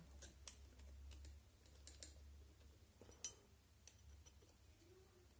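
Faint, scattered small clicks of a hex driver and small screws and parts being handled while a suspension arm is screwed onto an RC car chassis, over a low steady hum.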